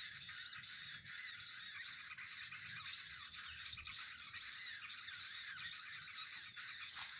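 Dense, continuous chorus of small birds chirping and twittering, with rapid repeated rising-and-falling calls overlapping throughout.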